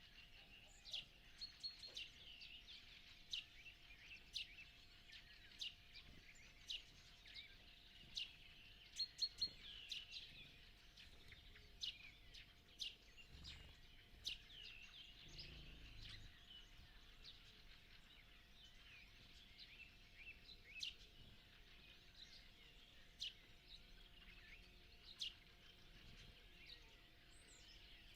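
Dawn chorus of wild songbirds: many short, high chirps and call notes at irregular intervals. A quick run of three loud notes comes about nine seconds in, over a faint steady hum.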